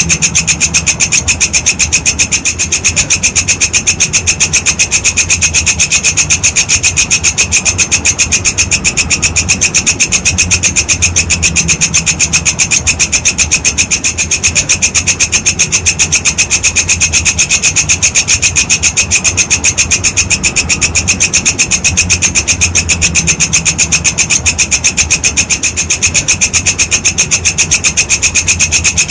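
Walang kecek insect stridulating: a continuous, high-pitched rasping call made of rapid, evenly spaced pulses. A low hum runs underneath.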